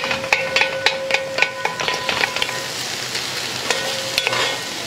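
Wooden spatula stirring and scraping chicken, potatoes and green beans in a hammered steel pot, with a quick run of knocks in the first two seconds and a few more near the end, followed by a faint ringing. Under it a steady sizzle: the chicken cooking without oil in its own released juices.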